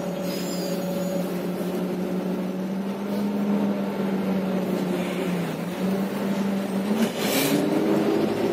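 Renault MGDR natural-gas engine and driveline of an Irisbus Agora L articulated bus under way, heard from inside the rear section. It runs at a steady pitch, dips about five seconds in, then steps up about seven seconds in and climbs as the bus accelerates, with a brief hiss at that point.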